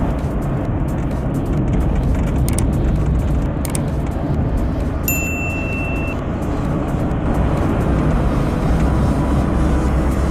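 Car driving on a mountain road, heard from inside: a steady rumble of engine and road noise, with one short high beep about five seconds in.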